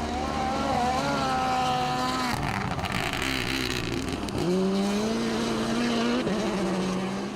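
Rally car engine pulling hard under acceleration, its pitch climbing and dropping at gear changes: once about two seconds in, then rising sharply again around four and a half seconds and shifting near six seconds.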